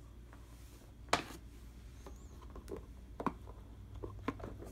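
Cardboard board-game pieces being handled: one sharp knock about a second in, then a few lighter clicks and taps as the punch-out board is set down and the box is handled.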